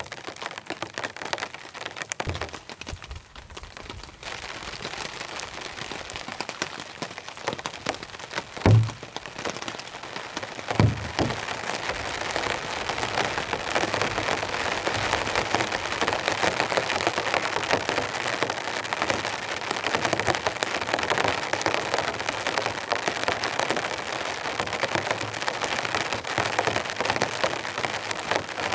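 Heavy rain falling on a tarp and tent, growing heavier and steadier about twelve seconds in. Two dull thumps sound near the middle, the first the loudest thing heard.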